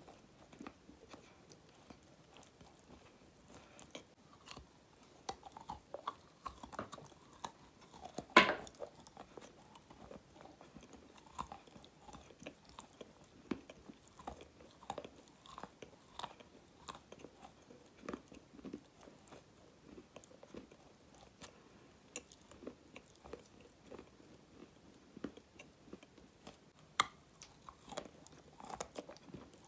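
Close-miked biting and chewing of a hard, crumbly dark grey block, with many small crunches and crackles. There is one loud crack of a bite about eight seconds in, and another near the end.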